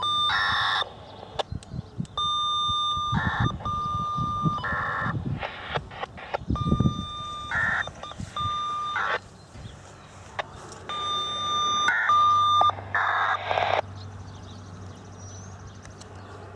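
FSK radio signalling data for the warning siren system: a steady high carrier tone broken every second or two by short warbling data bursts, the pattern repeating several times.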